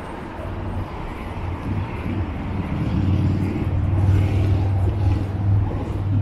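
A road vehicle's engine running with a low steady hum, getting louder about two seconds in.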